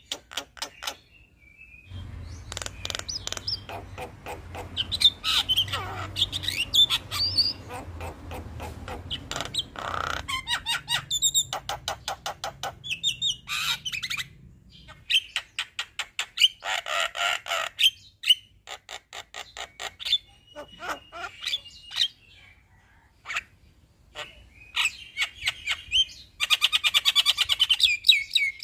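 Male Javan myna singing a long, varied song of rapid chattering, rattling and whistled notes, in bursts with short pauses, ending in a fast rattle.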